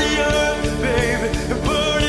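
Rock song playing: a voice singing over a steady drum beat.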